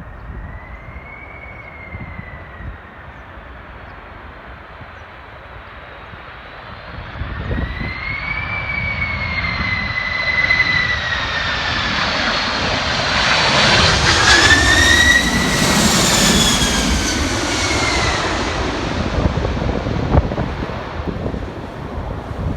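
Jet airliner (EVA Air's Sanrio Dream Jet) passing close by: its engines whine and roar, the pitch wavering up and down. It grows louder from about a third of the way in, is loudest about two-thirds through, then fades. Strong wind buffets the microphone underneath.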